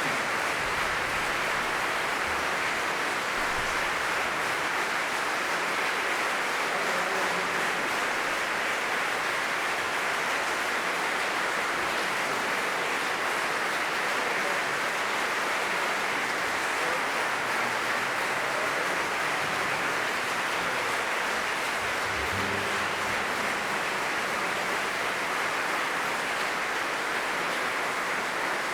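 A long, steady round of audience applause.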